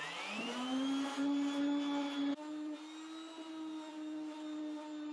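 Electric random orbital sander spinning up, its whine rising in pitch over the first second, then running steadily as it finish-sands weathered wood with 120 and 240 grit. The tone shifts slightly about two seconds in.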